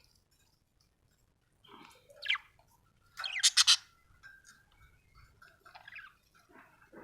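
Budgerigar chirping: a short sweeping chirp about two seconds in, then a loud burst of quick high chirps, followed by softer chatter.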